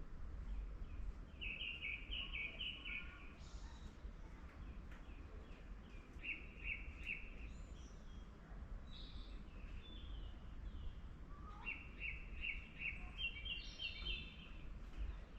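Wild forest birds chirping: phrases of rapid, repeated short notes lasting a second or two, three times, with scattered single calls in between, over a steady low background rumble.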